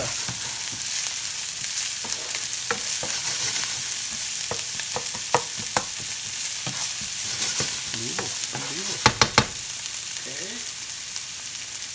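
Diced onion and garlic sizzling in olive oil in a nonstick skillet, stirred with a plastic spoon that clicks against the pan now and then. Three sharp knocks of the spoon on the pan come about three-quarters of the way through.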